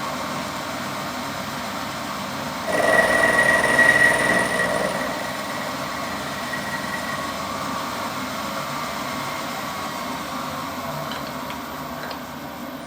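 Machine-shop machine running steadily; about three seconds in the cutter bites into the metal, giving a louder cut with a steady high whine that fades away over the next few seconds.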